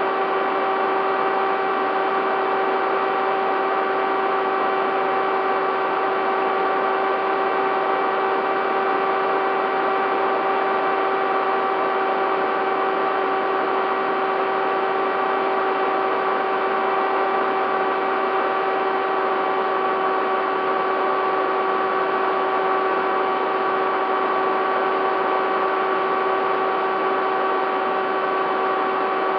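Bixler 3 model plane's electric motor and propeller whining at a steady pitch over a rush of airflow, heard through the plane's onboard camera microphone.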